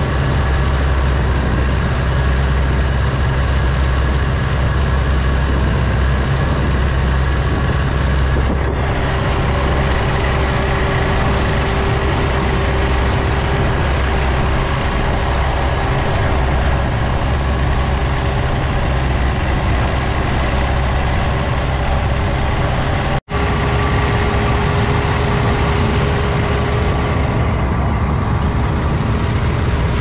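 Combine harvester running steadily, a heavy engine drone with a steady whine over it. The sound cuts out for an instant about three-quarters of the way through.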